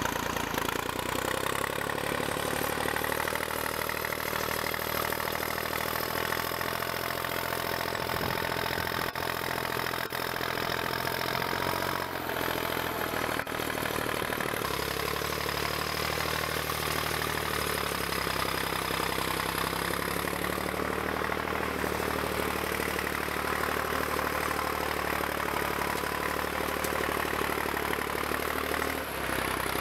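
Farm tractor engine running steadily while it hauls a log-laden forestry trailer through snow; the engine note changes about halfway through.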